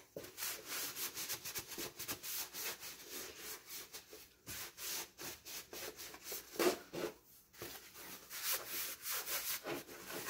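Alcohol-dampened paper towel rubbed back and forth over a sanded resin-coated canvas in many quick, irregular scrubbing strokes, a few louder a little past the middle: wiping off the sanding dust before the final resin coat.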